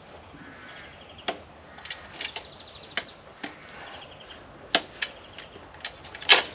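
Irregular sharp clicks and taps as end bungs are pushed and tapped into the ends of a motorcycle grab rack's tubes, the loudest near the end.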